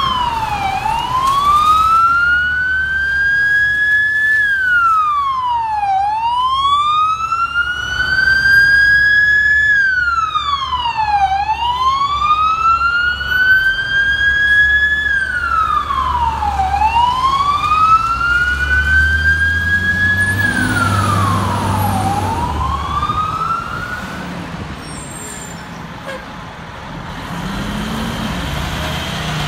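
Fire truck siren on a slow wail, each cycle rising over about four seconds and dropping quickly, repeating about five times before fading out a little past two-thirds of the way through. A low engine rumble runs underneath and is left on its own after the siren fades.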